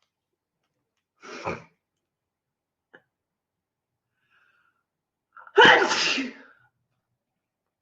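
A young woman sneezing from allergies. There is a shorter, quieter sound about a second in, then a loud full sneeze a little over five seconds in, with a quick intake of breath just before it.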